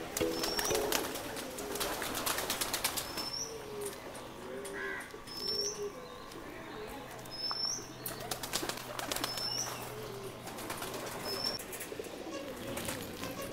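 Pigeons in an aviary cooing in short low calls, with flurries of flapping wings, and a small bird's short high chirp repeating every second or two.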